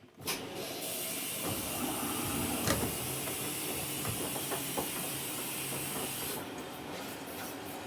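GE washing machine filling with water for the rinse: a steady hiss of water rushing into the tub that starts suddenly just after the beginning, with a few faint clicks. The highest part of the hiss drops away about six seconds in.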